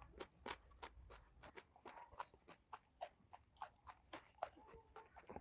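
Faint close-up eating sounds: a person chewing and biting food with mouth open, giving irregular wet clicks and crunches several times a second.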